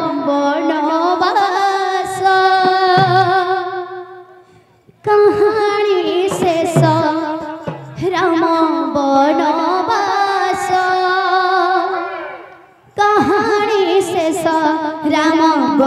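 Kirtan singing: one voice holds long, wavering melodic lines in three phrases, with short breaks about five and thirteen seconds in, over occasional drum strokes and cymbal clashes.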